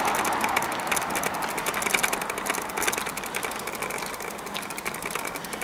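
Bicycle rear freewheel ticking rapidly as the bike is pushed along on foot, over a rushing noise that fades within the first second.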